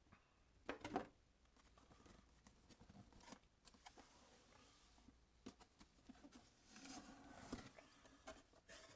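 Faint rustling and clicking of a cardboard kit box and its packaging being opened and handled, with a louder brief rustle about a second in and more rustling near the end.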